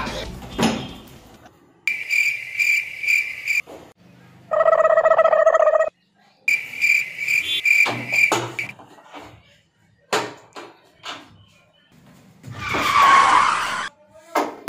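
Comedy sound effects: two short runs of cricket chirping, evenly pulsed high notes, with a steady pitched tone lasting about a second and a half between them. Some clicks follow, then a brief burst of noise near the end.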